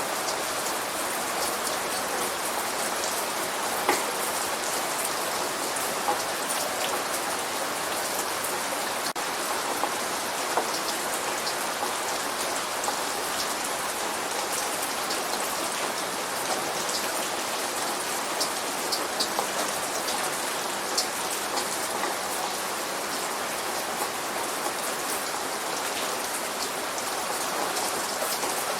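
Steady light rain falling, an even hiss with scattered single drops ticking close by, a little louder about four seconds in and again around eighteen to twenty-one seconds.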